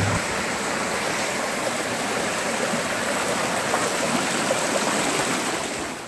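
Shallow mountain stream rushing steadily over rocks, fading slightly just before the end.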